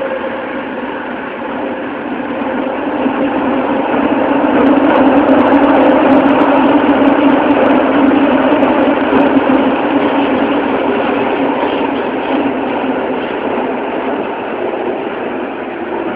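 Toei 12-000 series linear-motor subway train running in a tunnel, heard from inside the car: a steady rumble of wheels and running gear with a low, steady hum from its GTO-thyristor VVVF inverter drive. It grows louder toward the middle and eases off near the end.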